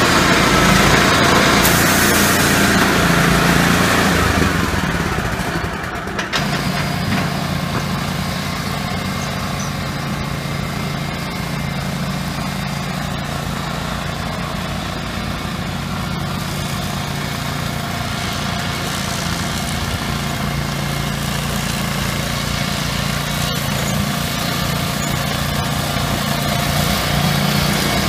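Billy Goat brush cutter's 13 HP 388cc Honda engine running, loud for the first six seconds, then cutting to a steadier, quieter drone as the machine cuts through tall grass and brush.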